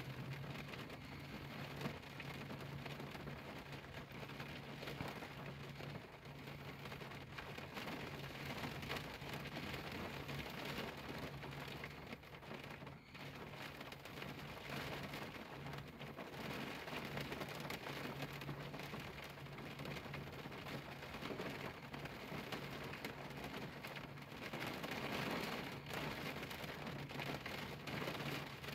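Rain falling on a car windshield, heard from inside the car: a steady patter of many small drops striking the glass.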